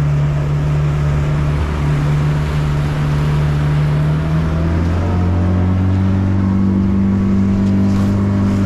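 A 130 hp outboard motor runs at cruising speed, driving the boat along. Its pitch rises a little about five seconds in as the revs pick up.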